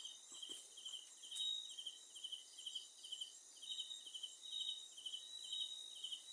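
Crickets chirping in an even, pulsing rhythm of a little over two chirps a second, over a steady higher insect trill.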